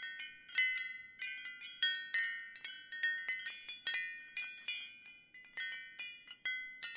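Wind chimes struck irregularly, several strikes a second, their clear high notes ringing on and overlapping.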